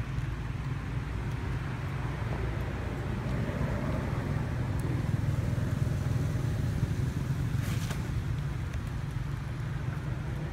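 Steady low rumble of outdoor background noise, with a brief sharp crackle about eight seconds in.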